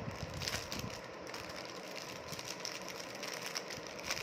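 Small packaging being opened by hand: faint rustling and irregular crinkly clicks, a little stronger in the first second, over a steady background hiss.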